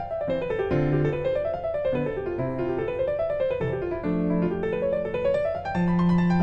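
Background piano music: quick arpeggios climbing and falling over held bass notes, repeating about every second and a half.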